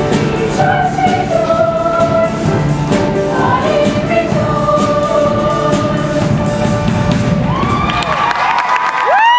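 Show choir singing in parts over a pop band backing track with a steady drum beat, building to a held final chord near the end.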